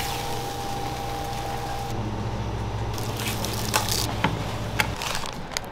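Wet squishing of sauce being laid onto a tray of fries, over a steady hum of kitchen equipment, with a few light clicks near the end.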